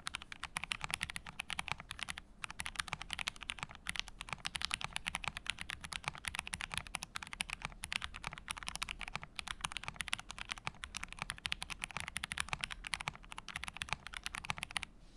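Fast typing on a mechanical keyboard with lubed vintage Cherry MX Brown tactile switches on TX 57g springs, a dense run of keystrokes with brief pauses about two and four seconds in.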